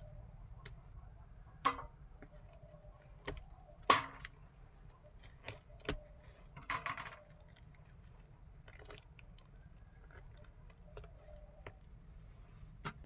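Scattered clicks, clinks and knocks of small objects being handled, the loudest about four seconds in, with a short cluster around seven seconds, over a low steady hum.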